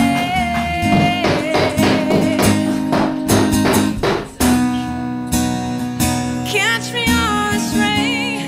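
Background song with acoustic guitar and percussion under a long held note; the rhythm drops out about four seconds in, giving way to sustained chords and a high melody line that bends up and down.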